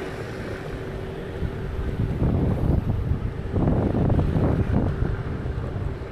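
Wind buffeting the microphone in irregular gusts from about two seconds in, over a low rumble and a faint steady hum.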